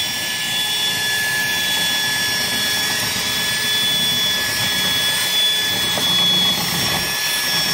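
Cordless drill running steadily at full speed with a high whine, its bit boring into a car's body panel.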